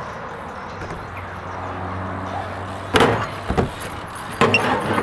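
A BMX bike knocking and clattering against a metal-topped skatepark ledge: two sharp hits about three seconds in, then another burst of clattering near the end.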